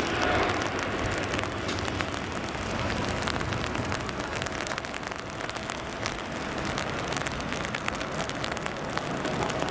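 Airbus A380's four jet engines at takeoff thrust as it lifts off and climbs away, a steady broad rush that eases a little, mixed with heavy rain and many small drops ticking close by.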